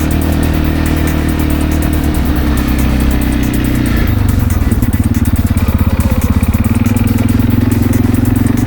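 An engine running. About four seconds in its sound drops and settles into a fast, even pulse.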